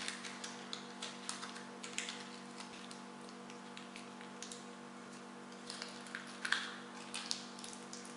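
Butter paper crinkling and rustling as it is wrapped around a caramel candy and its ends are twisted, in irregular crisp crackles, louder for a moment about six to seven seconds in.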